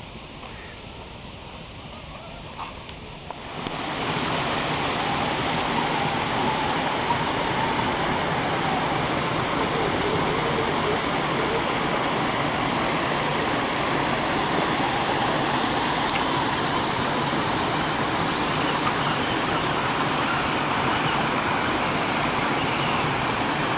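A shallow stream rushing over stones, a steady hiss of flowing water. It comes in suddenly about four seconds in, after a quieter opening with a few faint knocks.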